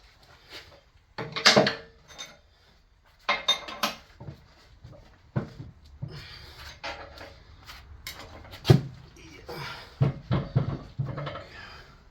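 Metal parts of a Parker 600 vise clanking and scraping as they are handled and pulled apart, in irregular knocks with pauses between them. The sharpest knock comes in the middle, and a quick cluster of knocks follows near the end.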